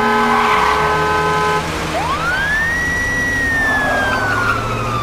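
A steady held tone for the first second and a half, then a police car siren gives one long wail about two seconds in: it rises quickly and falls slowly, over the low rumble of the car. The siren is signalling a car to pull over.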